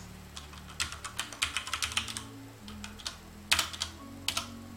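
Typing on a computer keyboard: a quick run of keystrokes about a second in, then a few separate, sharper key presses near the end, over a low steady hum.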